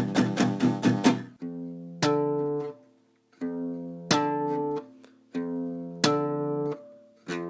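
Guitar chords strummed: a quick run of strums for about the first second, then single chords struck in pairs about every two seconds, each held briefly and then cut off.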